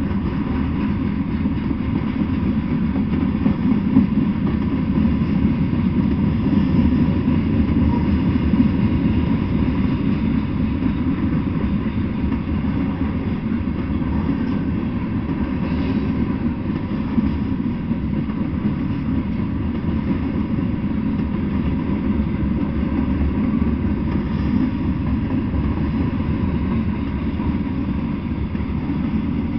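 Freight train of covered hopper cars rolling past: a steady low rumble of steel wheels on the rails, unbroken throughout.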